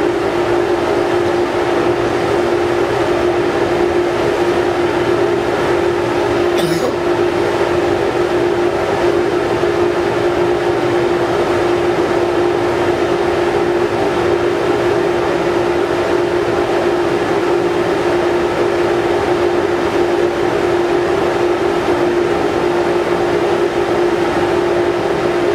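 Steady, loud drone of the ferry MV Salish Eagle's machinery heard from the deck while under way, with a strong steady hum running through it. A single brief click about seven seconds in.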